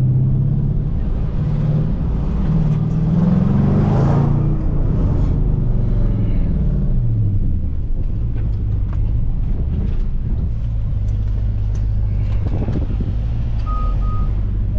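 SRT V8 engine heard from inside the cabin, rising in pitch for a couple of seconds as it pulls away, then settling back to a low, steady run. Near the end two short electronic beeps from the parking sensors sound as the car backs up.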